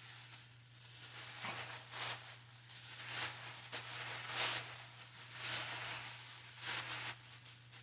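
Plastic bags crinkling and rustling in irregular bursts as the hands inside them work a handcuff key, over a steady low electrical hum.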